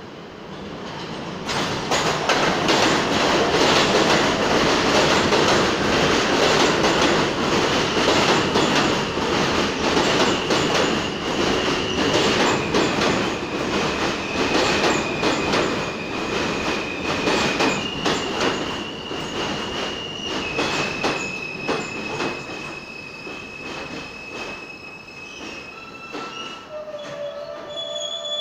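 R160A subway train arriving on an elevated track and braking to a stop: wheels clattering over rail joints, with a high steady whine that steps down and up in pitch as it slows, and wheel squeal. The noise builds quickly, then fades gradually as the train slows, and a few short tones sound near the end as it stops.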